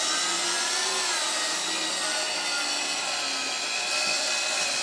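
Handheld power buffer running at low speed, working rubbing compound into a plastic headlight lens. A steady whine that dips slightly in pitch about a second in as the load on the pad changes.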